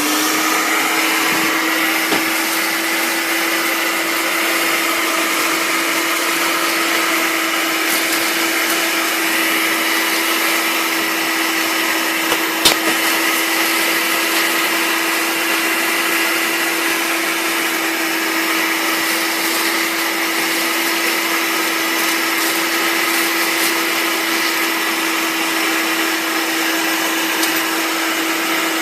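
Vacuum cleaner running steadily with a constant motor hum, sucking up broken window glass; one sharp click about halfway through.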